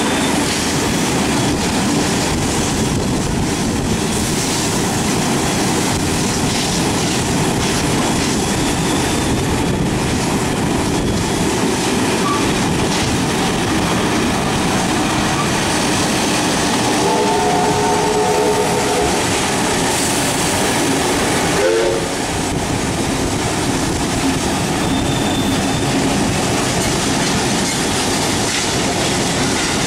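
Steam train running at speed, heard from on board: a steady rush of wheels on the rails and wind. A little past halfway a steam whistle sounds for about two seconds, followed shortly after by a brief second blast.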